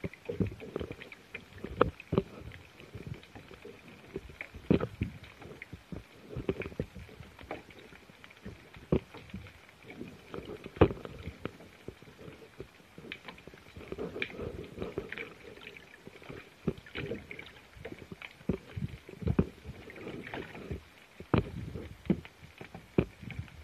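Muffled underwater sound: irregular knocks and clicks, several a second at times, over a low water rumble, with a faint steady high whine.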